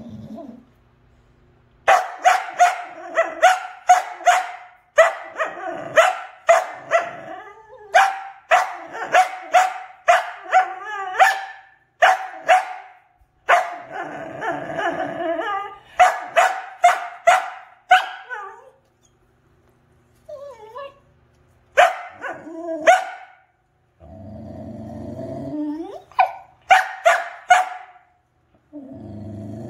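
Dog barking aggressively in fast volleys of several barks a second, with low growls leading into some of them; the barking starts about two seconds in.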